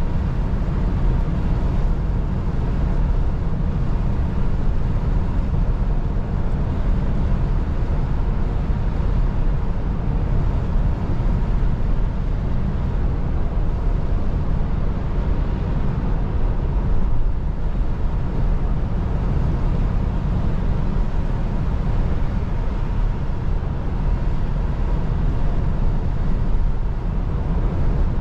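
Steady low drone inside the cab of a Volvo heavy goods truck cruising at motorway speed: engine and tyre noise on a rain-soaked road.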